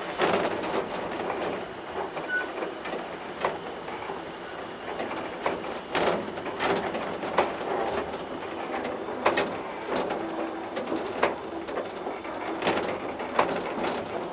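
Kitson & Co 0-6-0T steam tank locomotive under steam, heard from its cab: a steady steam hiss with irregular sharp clanks and knocks every half second to a second or so.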